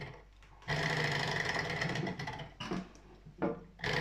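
Small brass hobby Stirling engine running with a fast, even mechanical rattle once its flywheel has been spun by hand. It runs from about a second in, fades out after a couple of seconds, and picks up again near the end. It keeps stalling, which the owner puts down to not enough heat from the burners.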